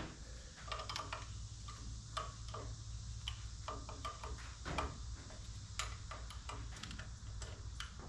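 Irregular light metallic clicks and taps, from hand tools working the adjustment hardware on a Wood-Mizer LT35 sawmill head, over a low steady hum.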